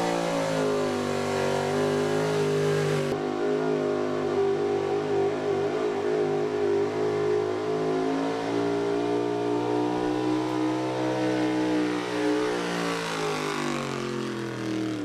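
A 1984 Chevrolet four-wheel-drive pulling truck's naturally aspirated, single-carburetor small-block V8 held at high revs through a full pull, its pitch nearly level with a slight rise. Near the end it sags as the truck runs out of power down the track.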